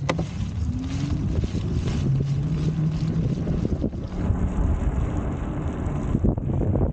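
Wind buffeting the microphone over the road noise of a moving electric chopper-style scooter and dog trailer rolling on wet pavement: a steady low rumble with a hiss over it.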